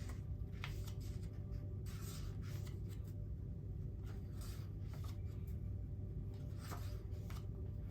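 Soft, brief rustles and rubs of tarot cards being handled, a handful of them scattered through the pause, over a steady low hum.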